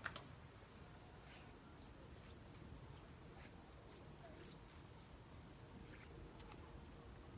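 Near silence: faint outdoor ambience with a sharp click right at the start, a few faint ticks, and a thin high tone that comes and goes every second or so.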